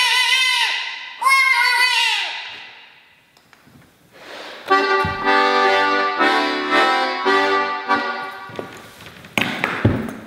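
Pulcinella's buzzy, trumpet-like swazzle voice calls twice with sliding pitch. After a short pause, a diatonic button accordion plays a few seconds of chords over bass notes, and a few knocks follow near the end.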